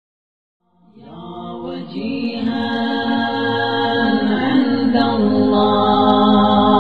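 Wordless a cappella voices holding a long chanted drone. They fade in from silence about a second in and swell steadily louder, the vocal backing that opens a noha recitation.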